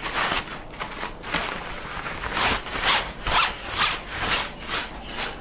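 Cloth rod bag rubbing and sliding against a cardboard box as it is handled, in a series of uneven scraping strokes.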